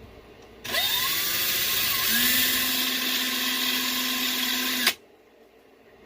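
A handheld electric power tool motor, such as a drill or driver, whines up to speed, runs steadily for about four seconds with a loud hiss, then cuts off abruptly.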